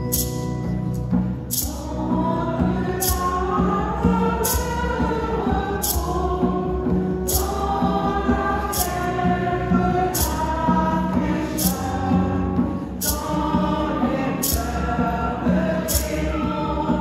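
A choir singing a hymn to a steady beat, with a sharp percussive strike about every second and a half.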